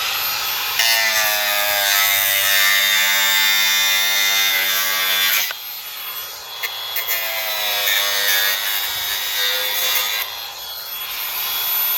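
Power tool running at high speed with a steady whine, turning the Poulan Pro chainsaw's clutch and chain so that they rub and grind. It drops off briefly about halfway, comes back, and turns into a rougher grinding noise near the end.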